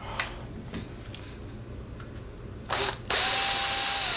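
Light plastic clicks from a disassembled Xbox 360 controller shell being handled. Near the end comes a short burst, then about a second and a half of loud, dense rattling as the shell is shaken to free a stuck screw.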